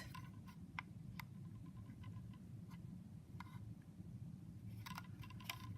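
Faint, scattered light clicks and taps, about half a dozen at uneven intervals, over a low steady room hum: small objects being handled.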